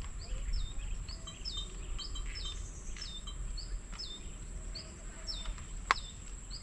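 Small birds chirping over and over, short high notes about two a second, with a single sharp click near the end.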